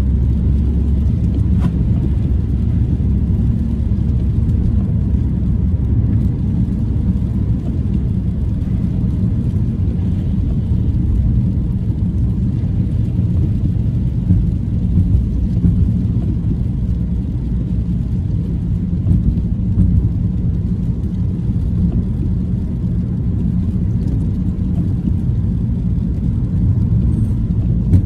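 Car driving along a wet road, heard from inside the cabin: a steady low rumble of engine and tyre noise.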